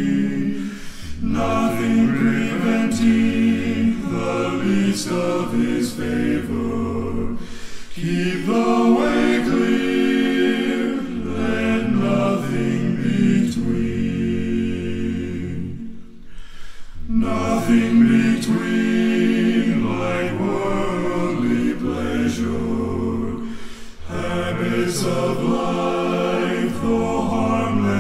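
Unaccompanied male vocal group singing a gospel hymn in close harmony, in long sung phrases broken by short breaths about every eight seconds.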